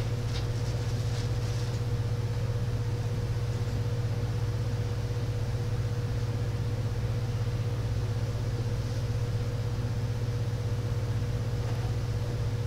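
A steady low hum with a thin, steady higher tone above it, unchanging throughout.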